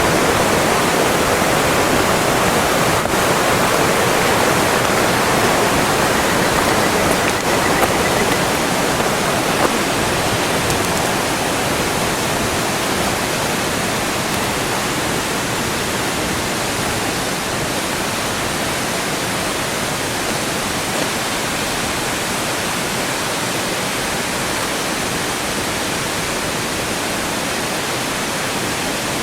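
Steady rush of flowing water, a little louder for the first ten seconds or so before settling.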